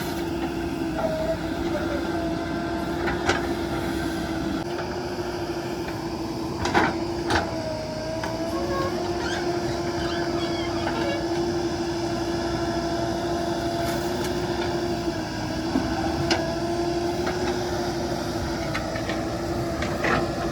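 JCB 3DX backhoe loader's diesel engine running steadily at working speed, its pitch sagging briefly a few times as the hydraulics take load. A few sharp knocks sound over it.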